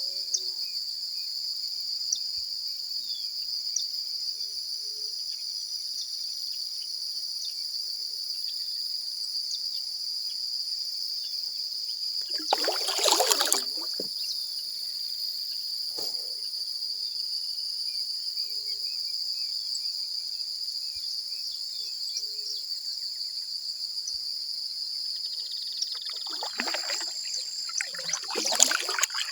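Steady high-pitched insect chorus, with water splashing from kayak paddle strokes about halfway through and again near the end.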